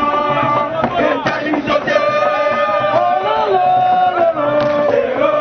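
A crowd chanting and singing together, many voices holding long notes in unison.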